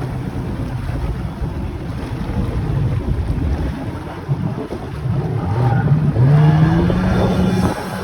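Wind buffeting the microphone, then about five and a half seconds in a jet ski's engine rises in pitch as it speeds up, and its pitch then holds steady.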